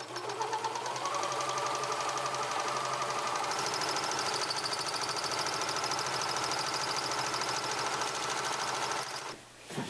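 Four-thread serger (overlock machine) running at speed as it overlocks the raw edge of a piece of fabric, with a rapid, even stitching rhythm. It speeds up over the first second, then runs steadily and stops shortly before the end.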